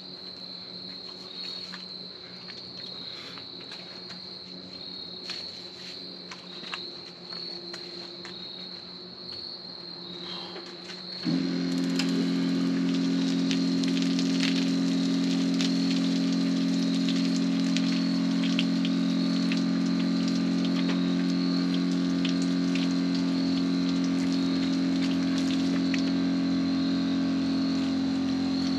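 Portable camp-shower water pump switching on suddenly about a third of the way in and running with a steady hum, with water spraying and pattering.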